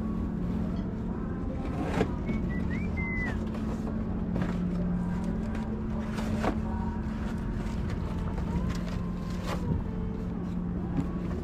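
Steady low motor hum with a droning tone that dips slightly in pitch a few times, over scattered light clicks and knocks, with a brief high chirp a couple of seconds in.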